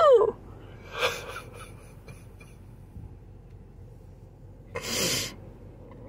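A man crying: a wail trails off and falls in pitch at the start, then a short breathy sob about a second in and a longer gasping breath about five seconds in.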